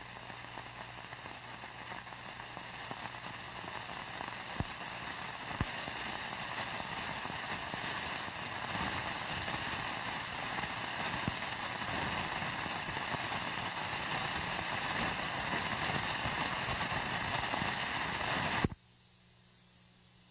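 Steady rushing hiss that slowly grows louder, with two faint clicks about four and a half and five and a half seconds in. It cuts off suddenly near the end, leaving a faint low hum.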